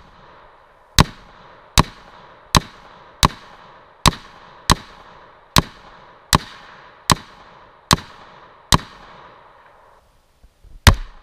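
Rifle fired in quick succession, a dozen shots about one every 0.8 seconds, each trailing off in a short echo; after a pause of about two seconds, one more shot near the end.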